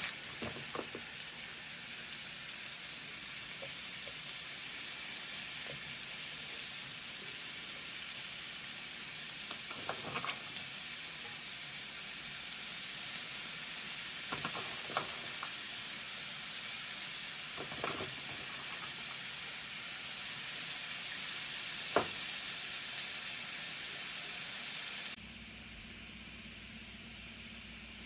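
Food sizzling steadily in a hot frying pan, with a few light taps of a utensil. The sizzle cuts off suddenly near the end, leaving a fainter hiss.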